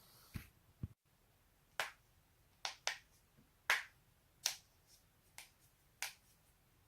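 Neck joints cracking: two dull low knocks in the first second, then after a short break about seven sharp pops, irregularly spaced, two of them in quick succession.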